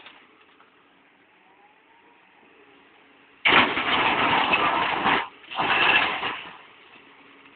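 Excavator bucket tearing into a face of slig (broken shale rock), with the machine working. Two loud bursts of grinding, scraping rock come about three and a half seconds in, each lasting a second or so, after a faint lull.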